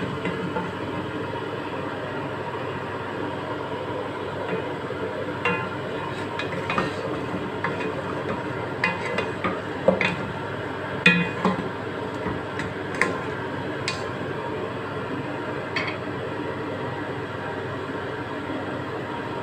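A spatula knocking and clinking against a pot as chunks of spiced lamb are stirred, about a dozen sharp knocks mostly in the middle stretch, over a steady background noise.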